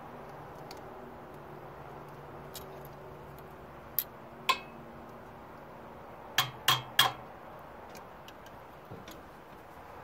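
Five sharp metallic clinks with a short ring: two half a second apart near the middle, then three in quick succession a couple of seconds later, over a faint steady background hum.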